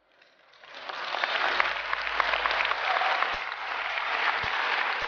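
Large audience applauding. It swells up out of near silence in the first second, then holds as a dense, steady clatter of claps.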